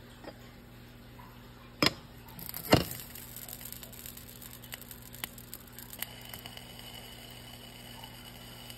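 Glass frying-pan lid set down on the pan: two sharp clinks about a second apart, the second the louder. A faint hiss with a few light ticks follows as the pancake cooks under the lid, and a faint steady high tone comes in about six seconds in.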